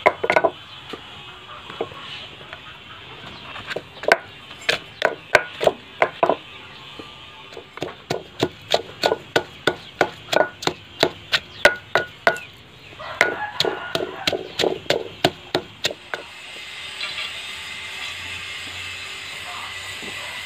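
Pestle pounding garlic in a mortar: runs of sharp, regular knocks with short pauses between them. Near the end the pounding stops and a steady hiss takes over.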